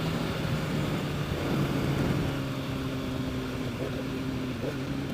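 Honda CBR1000RR's inline-four engine running at steady revs while riding, over a steady rush of wind noise. The engine note drops to a lower steady pitch about a second and a half in.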